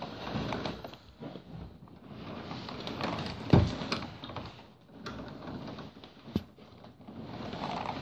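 Pug snoring in its sleep: a run of rasping, snuffling breaths about every two to two and a half seconds, with a sudden loud noise about halfway through.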